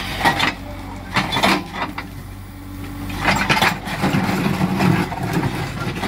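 Small excavator's engine running steadily while its bucket digs soil out of a trench, with scraping and knocking in the first two seconds and again a little past halfway.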